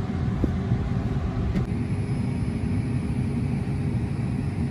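Steady low rumble of road and tyre noise inside a slow-moving Tesla Model 3; the car is electric, so no engine is heard.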